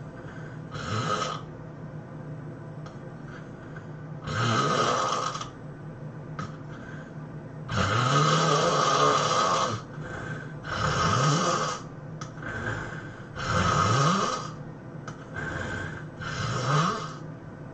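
A sleeping person's high-intensity snoring: six loud snores at irregular gaps of one and a half to three seconds, each rising in pitch, the one about eight seconds in the longest, with two fainter snores between the later ones.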